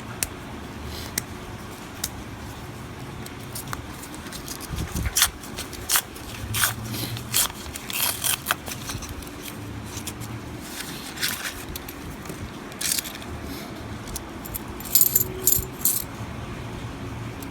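Half-dollar coins clinking and jingling against each other as they are handled and sorted, in scattered sharp clinks with a quick run of clinks near the end.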